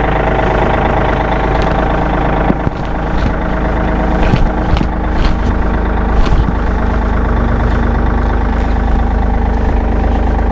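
A tractor engine running steadily at idle, with a few short knocks over it.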